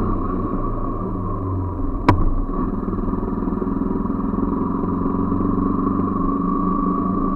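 Yamaha motorcycle engine idling steadily while the bike coasts in neutral, with one sharp click about two seconds in.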